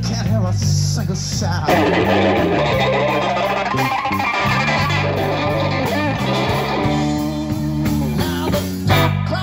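Live blues band playing an instrumental stretch of a slow blues: electric guitar playing lead lines with bent notes over electric bass and drums.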